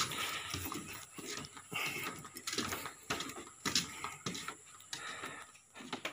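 Footsteps on wooden deck boards: a series of irregular knocks, about one or two a second, the sharpest right at the start.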